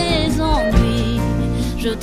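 Background music: a song with a sung melody over instruments and a beat.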